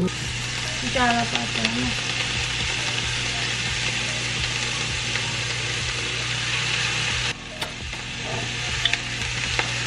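Onion, pepper and cabbage sauce sizzling in a stainless steel pan, with stir-fried noodles in a wok beside it, stirred and scraped with wooden spatulas. A steady low hum runs underneath.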